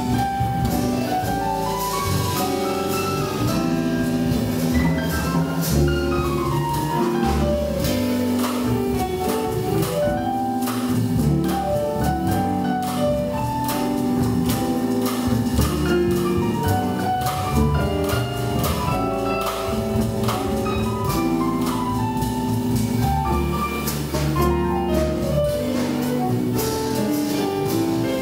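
Swing jazz instrumental break: a piano solo of quick single-note runs climbing and falling, over upright bass and a drum kit keeping time on the cymbals.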